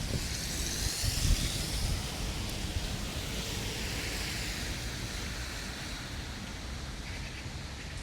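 Steady hiss of rain falling, with low wind rumble buffeting the microphone; the hiss swells over the first two seconds and slowly eases.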